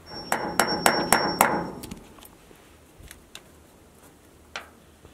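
Hammer struck five times in quick succession, about four blows a second, fixing a cable clip to a wooden timber block. A few fainter taps and clicks follow.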